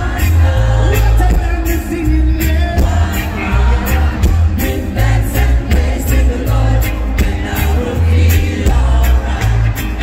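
Live reggae band playing through a concert sound system: a heavy, pulsing bass line and drums under a man singing into a microphone.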